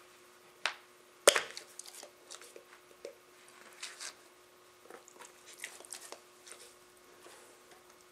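Dogs play-wrestling: scattered scuffling, mouthing and chewing sounds, with one sharp knock about a second in, over a faint steady hum.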